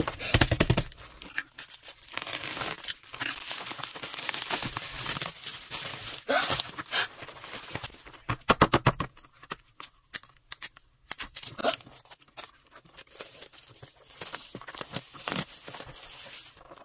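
Bubble-wrap packaging being torn open and handled: plastic crinkling and tearing, with bursts of rapid crackling near the start and about halfway through.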